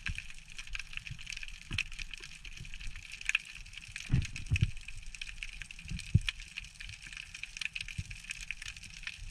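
Underwater ambient sound picked up by a camera in its housing: a dense, steady crackle of fine clicks, with a few low thumps about four and six seconds in.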